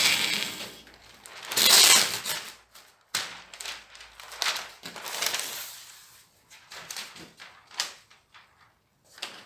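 Brown masking paper being pulled off a dispenser roll and torn away, with the loudest rustle about two seconds in. Scattered crinkling and light knocks follow as the sheet is handled.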